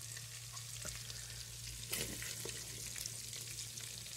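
Pork pieces sizzling softly in hot fat in a multicooker's open bowl after frying mode, with a few faint crackles and a steady low hum underneath.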